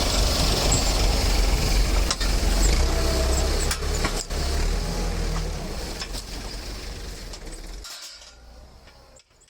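Tractor and baling machinery running with a steady low engine hum and a few sharp clanks. The sound fades away over the last few seconds.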